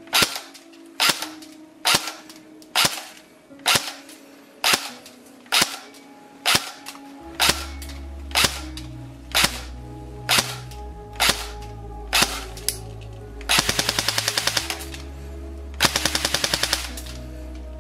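Jing Gong M4 CQBR airsoft electric gun (AEG) firing 0.20 g BBs through a chronograph: single semi-automatic shots about a second apart, then two full-auto bursts of about a second each near the end, at around 29 rounds a second on a 7.4 V LiPo battery.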